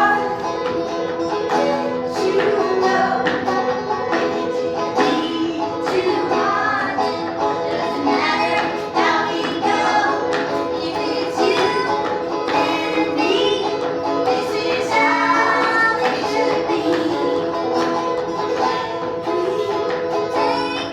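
Clawhammer-style banjo music played live, a bright plucked melody over a steady drone, with sharp regular taps running through it.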